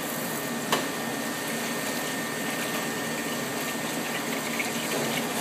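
Hot water running steadily through a frozen yogurt machine's dispensing parts, flushing out leftover yogurt. A single sharp click comes about a second in.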